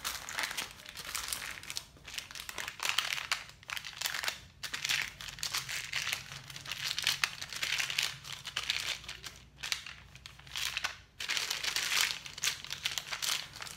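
Plastic piping bag crinkling and rustling as a plastic scraper pushes the batter inside down toward the tip, in uneven strokes with brief pauses.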